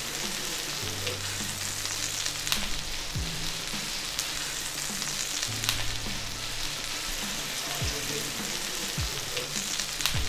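Ground beef rolls frying in melted butter on a hot griddle: a steady sizzle with a few sharp pops.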